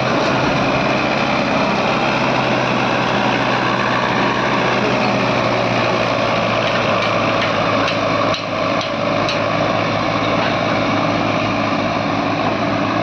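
Swaraj 855 tractor's three-cylinder diesel engine running steadily under heavy load as it pulls a borewell drilling rig, with a few short knocks a little past the middle.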